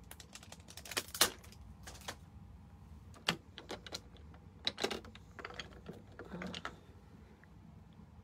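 Irregular sharp clicks and light taps of hard plastic: a clear photopolymer stamp and its clear sheet being handled and mounted on an acrylic stamping block. The loudest click comes about a second in.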